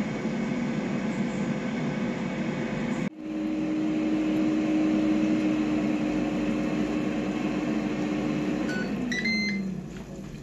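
Ninja air fryer running, its fan giving a steady hum with a constant tone, broken off briefly about three seconds in. Near the end the fan winds down, falling in pitch, and the fryer beeps a few times as its cooking timer ends.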